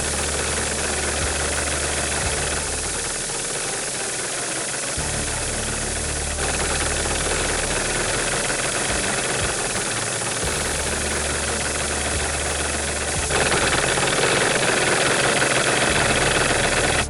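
A small engine running steadily with a loud, harsh noise that gets louder near the end. A music track's bass pulses underneath it.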